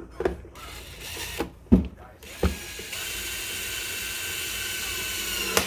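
A few knocks and clicks, then a power drill runs steadily for about three seconds driving a screw, its pitch dipping slightly near the end.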